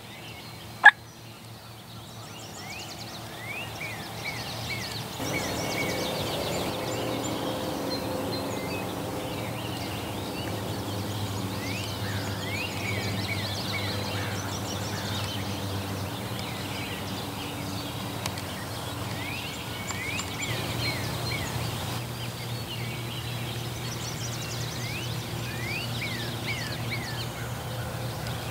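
Wild turkey toms gobbling in repeated bouts, each a rapid run of falling notes, a few seconds apart. A single sharp click sounds about a second in.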